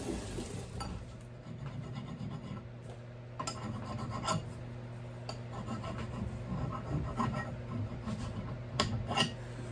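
Irregular scraping and rubbing strokes of hand filing or sanding on an axe and its wooden handle, over a steady low hum, with a few sharp clicks about midway and near the end.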